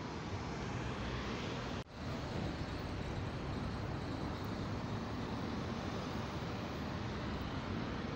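Steady street traffic noise, with cars driving past on the road. There is a brief break in the sound about two seconds in.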